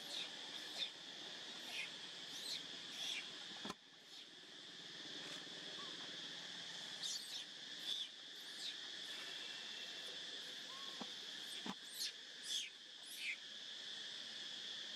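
Steady high-pitched drone of insects, with a dozen or so short, high squeaks scattered through it, each falling quickly in pitch. Two sharp clicks, a little before 4 seconds and near 12 seconds in.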